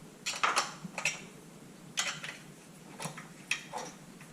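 Small metal clicks and clinks from tools and bolts on roof-rack bracket hardware, one sharp click roughly every second.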